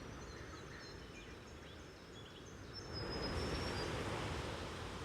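Ocean waves washing with birds chirping above them, a nature soundscape; the surf swells up about three seconds in.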